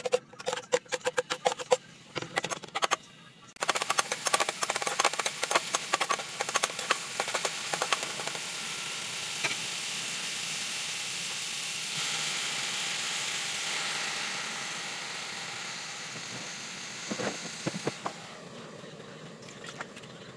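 Chopped garlic sizzling and crackling in hot oil in a nonstick wok, a steady hiss that starts about three and a half seconds in, after a few seconds of scattered clicks and taps. The sizzle dies down near the end, with a few knocks.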